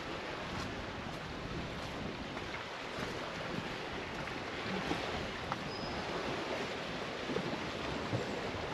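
Steady rush of wind and waves on a lakeshore.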